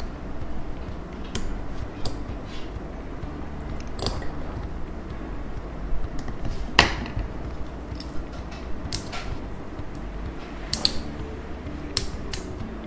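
Metal tweezers prying the thin metal shielding cover off a Honor 10 smartphone motherboard: scattered small clicks and scrapes of metal on metal, the sharpest about seven seconds in.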